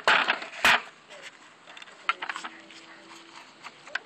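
Hard plastic knocks and clatter from a removed BMW 335d intake manifold being handled: two sharp knocks in the first second, then lighter scattered clicks.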